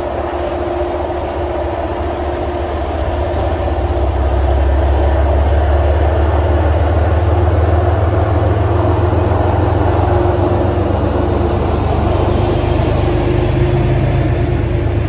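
MBTA commuter rail train passing close: steady running noise of the coaches on the rails, with a low engine drone that grows louder about four seconds in as the diesel locomotive pushing at the rear draws near.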